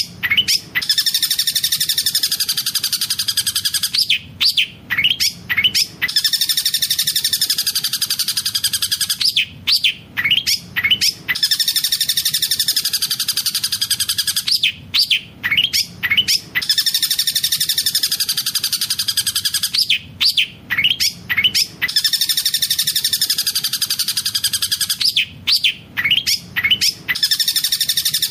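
Long-tailed shrike (cendet) song, filled with mimicked collared kingfisher calls: a long, fast rolling trill broken about every five seconds by a few short, sharp rising notes. The same phrase repeats over and over, as in a looped training track.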